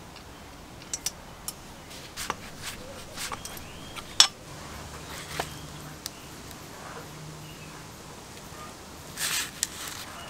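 Light sharp clicks and taps of small metal compressor parts being handled with tweezers and gloved fingers, the loudest about four seconds in, with a short rustle near the end.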